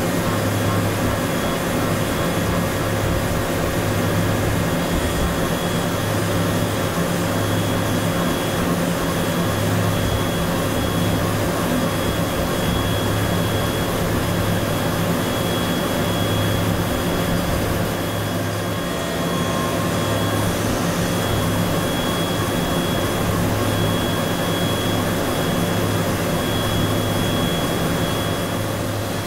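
CNC machining centre milling hardened SKD61 die steel (43 HRC) with a MOLDINO end mill, its spindle turning at 8,000 rpm: a steady machine hum with cutting noise and a thin high whine that comes and goes.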